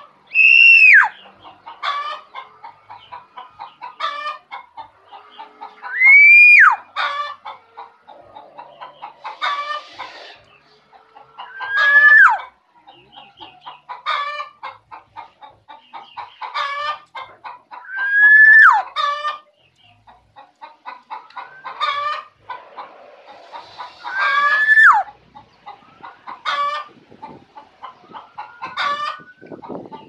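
Black-naped oriole (kepodang) calling. A loud drawn-out note rises and then drops away sharply, about every six seconds, with short clipped notes in between.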